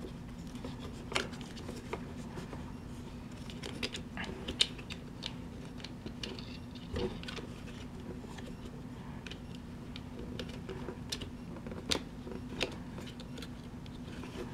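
Small scattered plastic clicks and rubbing as a battery lead is worked through a hole in a plastic RC truck chassis, over a faint steady hum.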